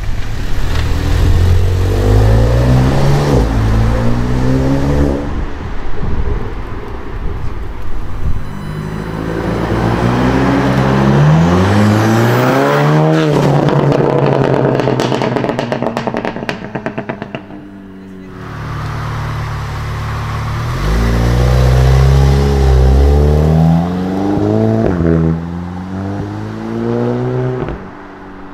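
Volkswagen Golf 7 GTI and Golf R 2.0-litre turbocharged four-cylinder engines accelerating hard one after another, the revs climbing and breaking at each gear change. Around the middle a rapid string of exhaust crackles follows a high-rev pull.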